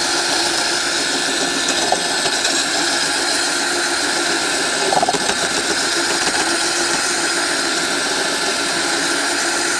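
Cordless drill spinning a corundum grindstone sharpener against the steel cutting edge of a lawn mower mulching blade: a steady grinding whine over the drill motor's hum.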